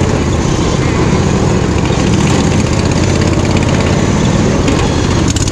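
Small engine of a modified off-road riding mower running steadily, with no change in speed.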